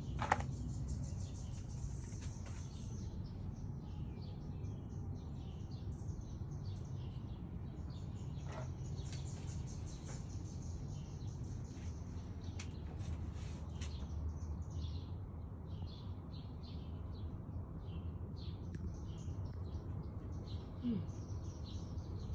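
Small birds chirping and calling repeatedly, over a steady low background rumble.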